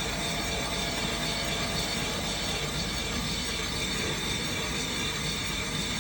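A machine tool running steadily, with a constant noise and a thin, steady high whine over it.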